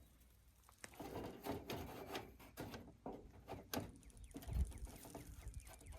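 Rain gutter and its fittings being handled: faint scattered clicks and light knocks, with a short low thump about four and a half seconds in.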